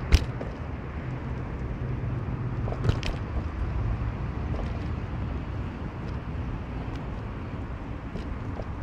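Car driving, a steady low engine and road rumble, with a sharp click just after the start and a few more clicks about three seconds in.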